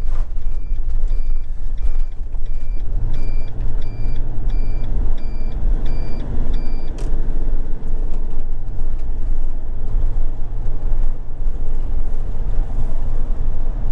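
Motorhome engine and road noise heard inside the cab as it drives through a roundabout. The turn indicator ticks steadily, about three ticks every two seconds, and stops with a click about seven seconds in.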